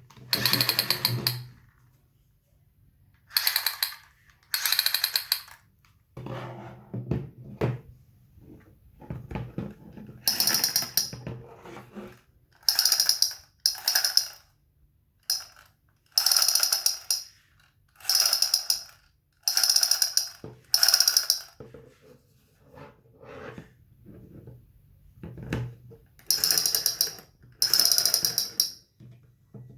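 Battery-operated toy pistol firing its sound effect in short rapid rattling bursts, each about a second long, a dozen or so with short gaps, and quieter handling clicks in between.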